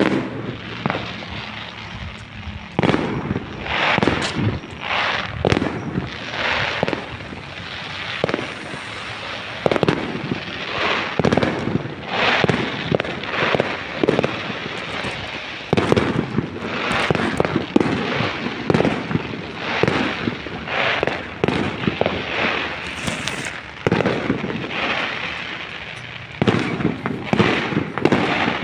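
Aerial fireworks display: a continuous barrage of bangs and crackling bursts, several a second, with echoing tails.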